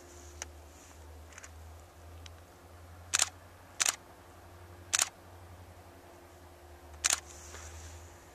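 A still camera's shutter firing four times, sharp clicks at uneven intervals over a low steady background hum.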